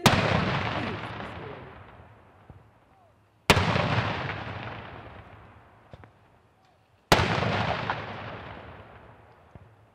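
Ceremonial cannon salute firing as honors for a general officer: three sharp booms about three and a half seconds apart, each followed by a long echoing fade.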